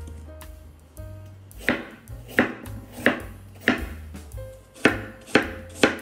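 Kitchen knife chopping on a cutting board: seven sharp chops, roughly one every half second, starting a little under two seconds in.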